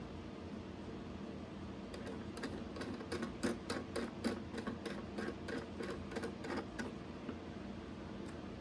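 A run of light, sharp clicks, about three to four a second, from about two seconds in until near the end, as the sound hole clamp is tightened down.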